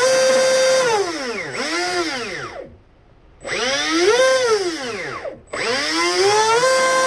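TP Power 4050 2300 kV brushless boat motor spun up on the bench, its whine rising and falling with the throttle: held high at first, then spinning down, two short blips that each wind down and stop, and a final run-up held high near the end. It runs smoothly, which the owner calls good.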